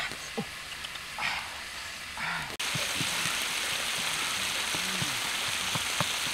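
Crickets sizzling in a wok over a wood fire: a steady hiss that starts abruptly about two and a half seconds in. Before it, the fire crackles with a few short pops.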